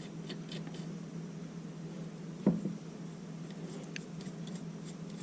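Small metal clicks and handling sounds from a pistol rear-sight pusher tool and slide being worked by hand, with one soft thump about two and a half seconds in, over a steady low hum.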